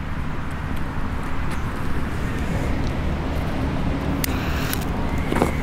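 Steady low rumble of distant traffic and wind, with a few sharp clicks about four seconds in as a jet-flame lighter is held to a small firework fountain's fuse.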